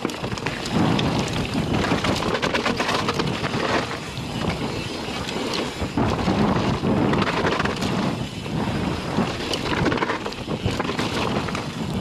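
YT Tues Core 4 29 downhill mountain bike descending a rough trail at speed: tyres running over dirt and rock, with the frame and drivetrain rattling and knocking over bumps, and wind noise on the microphone.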